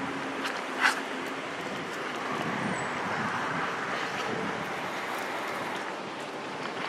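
Steady outdoor background noise, with one short sharp sound about a second in.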